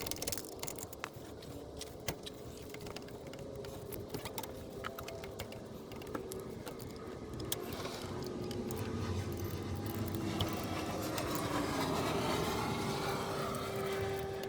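Scattered metallic clinks and scrapes of hand tools and parts as an alternator is worked loose under a car, over a steady hum that grows louder in the second half.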